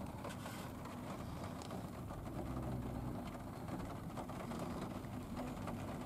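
Steady low rumble of a car idling, heard inside the cabin, with a few faint clicks from a paperboard snack box being handled.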